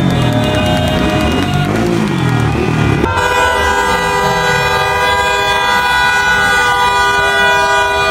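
Celebratory car horns: one horn note sounds at first, then from about three seconds in several horns are held down at once in a loud, steady, unbroken chord.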